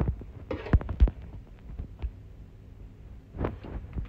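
Metal ladle spooning and spreading thick tomato-and-meat sauce over lasagna sheets in a baking dish: a series of soft low thuds and a few short knocks of the ladle against the dish.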